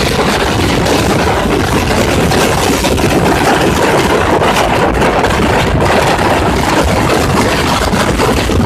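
Cruiser motorcycle's engine running steadily at road speed, mixed with a loud, even rush of wind and road noise.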